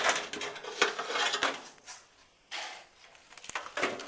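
Metallic clanking and knocks as the sheet-metal top of a GE top-load washing machine is lifted off and handled: a sharp bang at the start, a second or two of clatter, then a few more knocks near the end.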